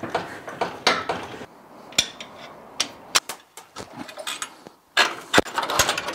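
Metal clicks, clanks and rattles as a steel swivel trailer jack is worked loose and lifted off a boat trailer's tongue, with sharp knocks about two, three and five seconds in.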